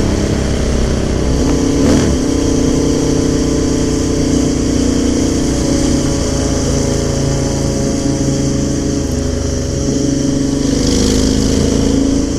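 Motorcycle engine running steadily at road speed, heard from a moving bike, with a steady hiss of wind and road over it.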